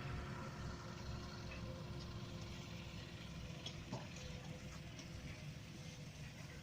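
A motor vehicle's engine running steadily and low, with a few faint clicks.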